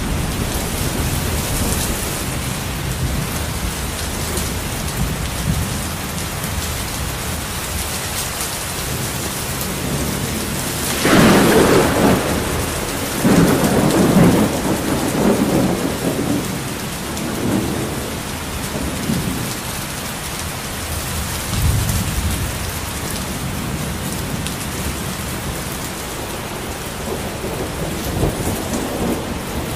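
Steady heavy rain with thunder: a loud thunderclap about a third of the way through that rolls on in a second crash and rumbles for several seconds, then fainter rumbles later.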